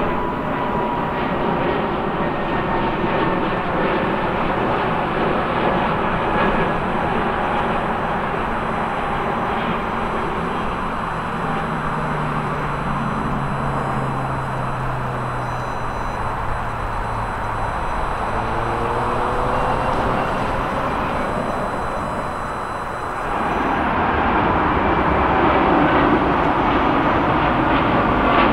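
Jet engines of an Airbus A321neo climbing away after takeoff: a steady roar with whining tones that slowly drop in pitch as it recedes. About 23 seconds in it cuts abruptly to the louder roar of a departing Boeing 787-9.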